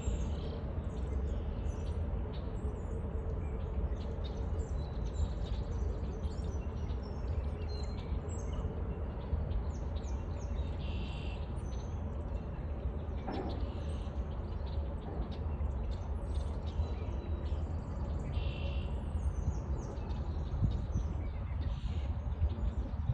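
A flock of birds chirping and calling, many short high chirps overlapping throughout, over a steady low rumble.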